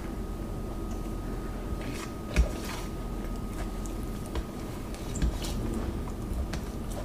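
Eating biryani by hand from a steel plate: fingers gathering and squishing rice against the plate, with chewing. A sharp knock comes about two and a half seconds in, and a faint steady hum runs underneath.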